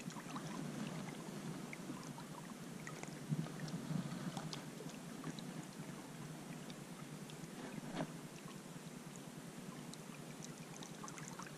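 Faint outdoor background: a low steady rumble with a few small scattered clicks, a little louder about a third of the way in and again near 8 seconds.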